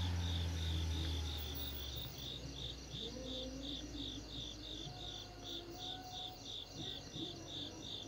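Cricket chirping in a steady, even rhythm of high pulses, about three a second. A low hum fades out over the first two seconds.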